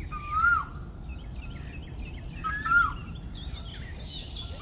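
Asian koel calling twice, a couple of seconds apart, each call bending up and then dropping away. Smaller birds chirp softly in between.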